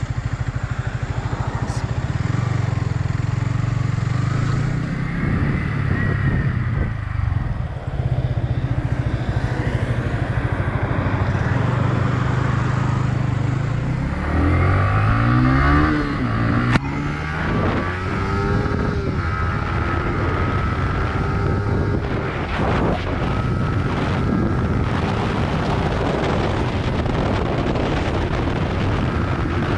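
Yamaha YZF-R15 single-cylinder sport bike engine running under way, with wind rushing over the helmet-mounted microphone. About halfway through the revs climb and drop several times as the rider shifts up through the gears.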